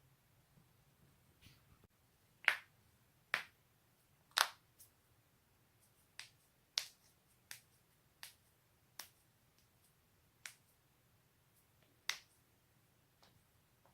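Joints being cracked: a run of about a dozen sharp, separate pops at irregular intervals, the loudest in the first few seconds.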